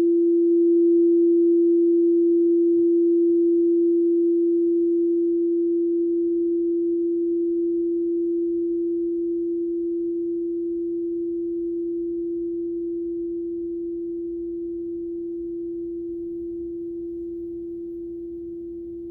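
Frosted crystal quartz singing bowl for the heart chakra ringing out in a single pure, steady tone that slowly fades, with no new strike or rub.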